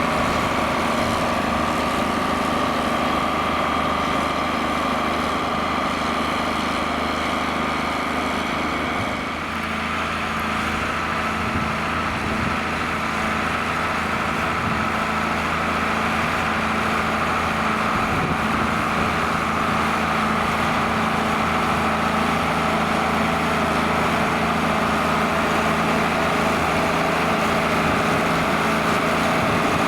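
John Deere 4850 tractor's six-cylinder turbo diesel engine running steadily while ploughing. Its pitch drops slightly with a brief dip in level about nine seconds in.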